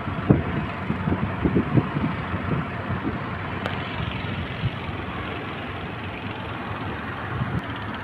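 Heavy sea surf: a steady wash of breaking waves, with wind buffeting the microphone in the first couple of seconds.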